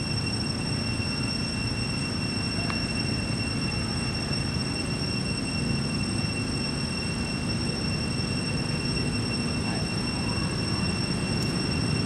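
Steady low outdoor background rumble with a constant thin high-pitched whine over it. No monkey calls stand out.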